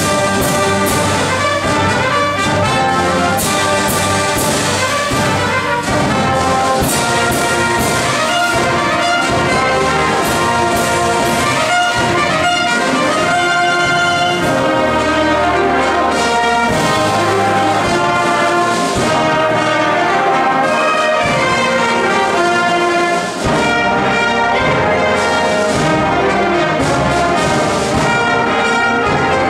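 School wind band playing a piece of music, with the brass section prominent over flutes and woodwinds.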